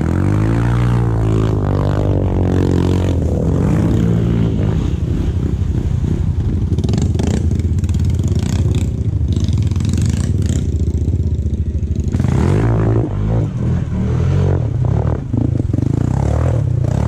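Snorkeled ATV engine revving as the quad drives through a muddy creek, with water churning and splashing around it. The engine climbs in pitch right at the start, and revs up again about twelve seconds in.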